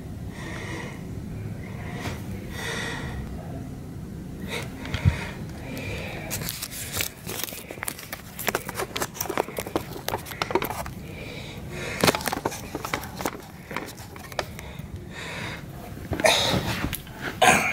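Irregular clicks and knocks of someone moving about and handling things close to the microphone, over a low steady rumble, with a few short breathy puffs in the first three seconds and a louder cluster of knocks near the end.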